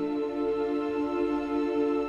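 Calm orchestral film-score music: soft sustained chords held steady, with no beat.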